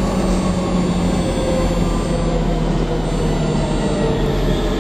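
Metro train running through an underground tunnel: a steady rumble of wheels on rails with an even electric motor hum.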